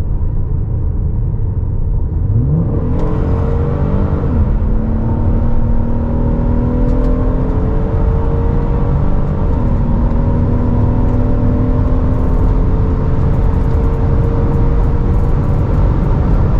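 Twin-turbo EcoBoost V6 of a Ford Explorer Sport at full throttle from a 40 mph roll, heard from inside the cabin, running an aftermarket tune at maximum timing and boost. The revs climb steeply about two to three seconds in as it kicks down, then the engine pulls hard and steadily through a couple of upshifts, with road and wind noise under it.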